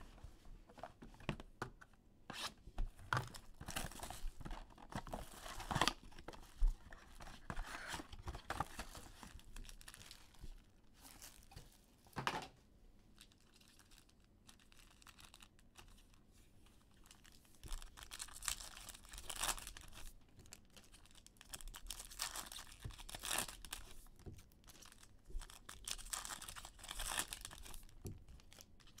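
A sealed trading-card box being opened and its foil card packs handled and torn open, with crinkling foil wrappers and irregular tearing rustles that ease off for a few seconds midway.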